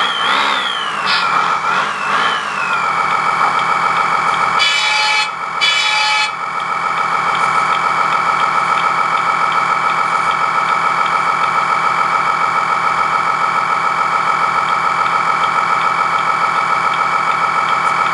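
RC engine sound module simulating an M35 military truck engine, played through a small loudspeaker: it revs up and down a few times, then settles into a steady idle. Two short horn blasts sound about five and six seconds in.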